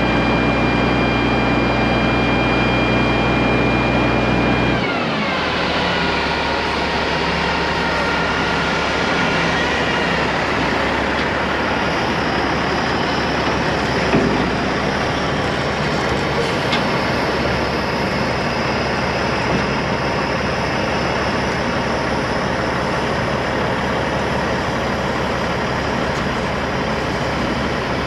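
Kenworth T800's Caterpillar C-15 diesel engine running at raised revs, dropping to a lower idle about five seconds in. After that a steady rushing noise goes on over the idling engine.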